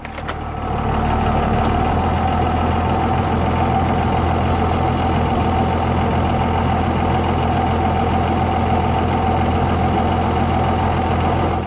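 The 5.9-litre Cummins inline-six turbo diesel of a 2000 Dodge Ram 2500 pickup idling steadily. It comes up over the first second and then holds even.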